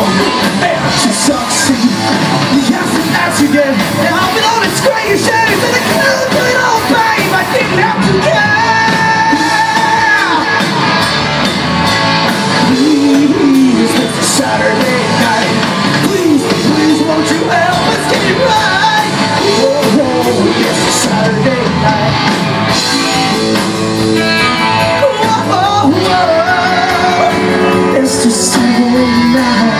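Live rock band playing: electric guitars, bass and drums with a male lead vocalist singing, recorded from the crowd in a club hall.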